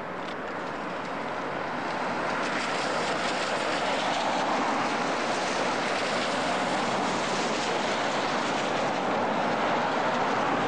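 Cars driving past close by: a steady rush of tyre and engine noise that builds over the first two seconds, then holds level.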